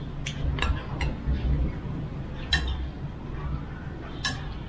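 Dishes and utensils clinking: a handful of sharp clinks, the loudest about two and a half seconds in and again near the end, with soft low knocks in between.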